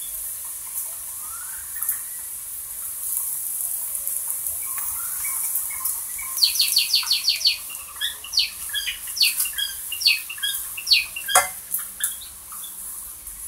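Fried potatoes and onions sizzling faintly in a hot wok while a spatula stirs them. About halfway through comes a fast run of short high chirps, then scattered chirps, with one sharp knock near the end.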